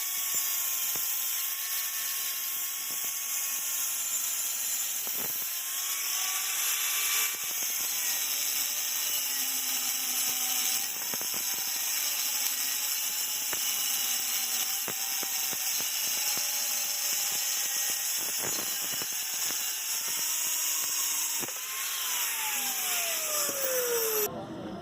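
Power tool motor running with a high, hissing noise; its pitch wavers up and down as the load changes. Near the end it is released and winds down in a falling whine.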